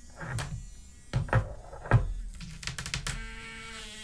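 Small littleBits modules snapping together on their magnets: a few sharp clicks in the first two seconds. About three seconds in, the littleBits alarm module starts a steady electronic buzz.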